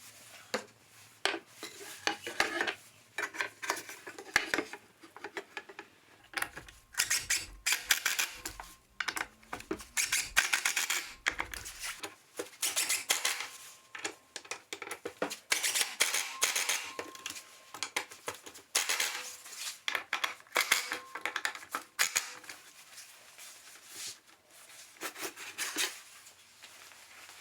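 Irregular clattering, knocking and scraping of small tools and hardware being handled, with short sharp clicks and brief rubbing sounds.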